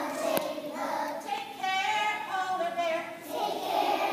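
A choir of young children singing a song together in phrases, with one short click about half a second in.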